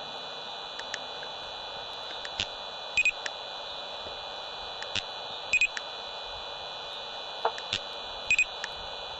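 Three short electronic double beeps, evenly spaced about two and a half seconds apart, over a steady static hiss with a few faint clicks. Each beep comes as a laser speed gun is fired at the car.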